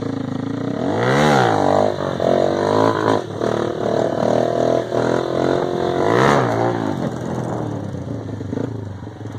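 Small motorcycle engine revving hard twice, about a second in and again about six seconds in, holding high revs in between while the bike is ridden up in a wheelie.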